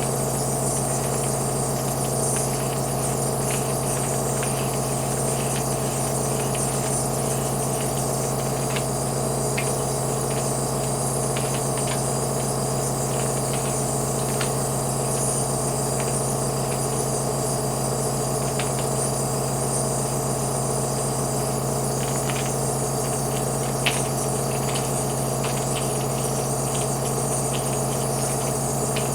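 Nebulizer air compressor running with a steady, even hum, with a single sharp click about three-quarters of the way through.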